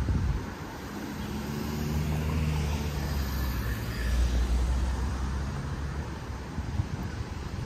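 Street traffic, with one motor vehicle's engine passing close by and loudest through the middle.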